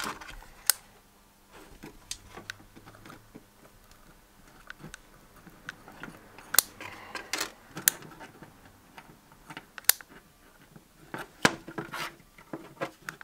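Scattered sharp clicks and light rubbing as small parts and tools are handled while a resistor is soldered into a light's wire.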